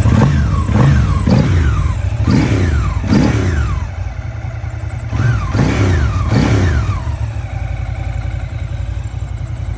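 2006 Ducati ST3's 992 cc V-twin revved in about eight quick throttle blips, the pitch jumping and falling back each time, then settling to a steady idle about seven seconds in. The bike is running again after a no-start caused by no fuel getting through.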